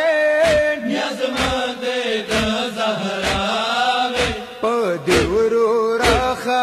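A man reciting a Pashto noha, a Shia lament, in long, drawn-out, wavering sung lines. Under the voice is a steady beat about once a second, the chest-beating (matam) that keeps time for a noha.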